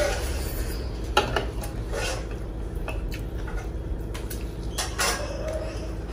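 A meal eaten by hand from metal plates: fingers scraping and scooping rice, with scattered light clinks of the plates, the sharpest about a second in, and chewing in between.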